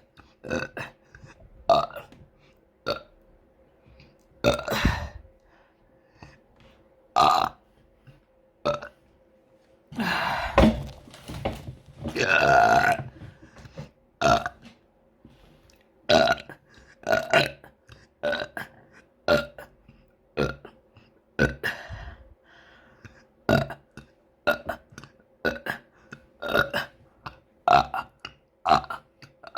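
A person burping over and over: a long run of short separate burps, with two longer, drawn-out belches about ten and twelve seconds in, and the short burps coming faster, about every half second, in the second half.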